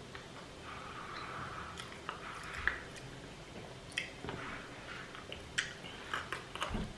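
A person chewing and biting food close to the microphone, with several sharp mouth clicks scattered through it.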